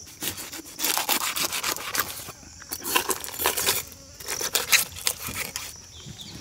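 A knife cutting and scraping through a large tuna's skin and flesh behind the head: a series of scraping strokes mixed with sharp clicks, at an uneven pace.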